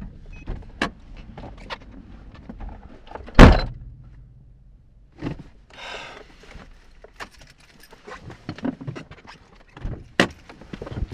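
A car door slamming shut with a heavy thunk about three seconds in, heard from inside the cabin, among smaller clicks and rustles of people moving in their seats.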